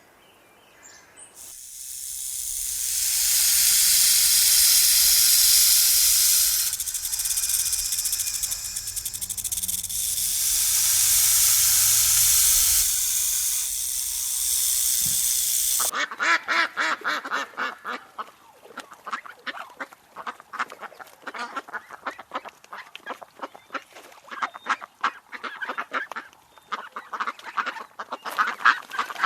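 A loud, even rushing hiss for roughly the first half, which cuts off suddenly, followed by a duck-like waterfowl calling in rapid runs of short, quick-fire notes.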